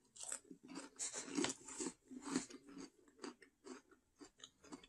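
Crisp crackers being bitten and chewed, a run of irregular crunches a few times a second, the loudest in the first half.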